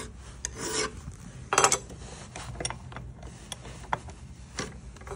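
A hand file drawn across the teeth of a metal juicer cutter held in a vise, sharpening the cutting corners: a couple of short rasping strokes in the first two seconds, then scattered light metallic clicks and taps.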